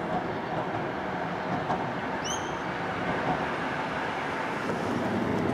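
A W-class tram rolling along street tracks, mixed with steady road traffic. A brief high chirp comes about two seconds in.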